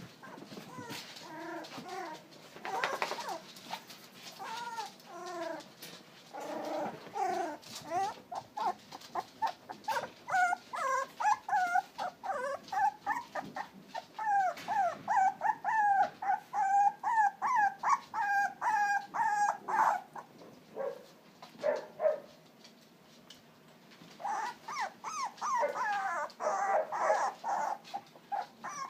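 Puppies crying in short, high calls that bend up and down in pitch, many in quick succession and overlapping. There is a quieter lull of a few seconds about two-thirds through.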